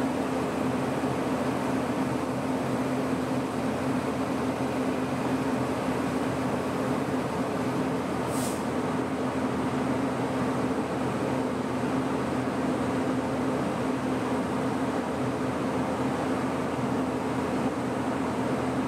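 Steady mechanical hum of a train standing on the track, even throughout, with a short hiss about eight seconds in.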